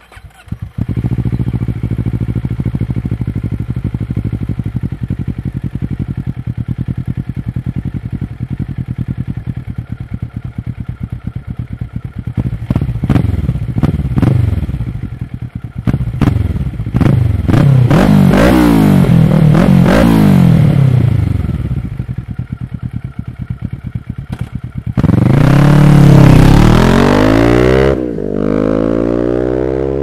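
2012 Kawasaki ER-6n parallel-twin engine through a full Akrapovic exhaust with the dB-killer removed. It starts about half a second in, idles with a loud, lumpy beat, then is revved in repeated rising-and-falling blips. Near the end it revs hardest and pulls away, its pitch climbing through the gears.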